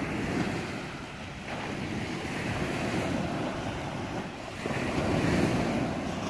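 Surf breaking on a pebble beach, with wind on the microphone. The wash swells about a second and a half in, and again more loudly with a sudden rise a little past four and a half seconds.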